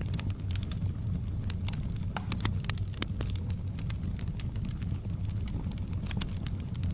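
Fireplace fire crackling: frequent irregular sharp pops and snaps over a steady low rumble.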